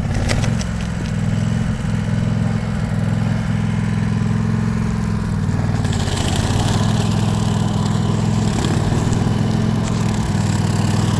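A small engine running steadily, with extra rattling noise joining about six seconds in.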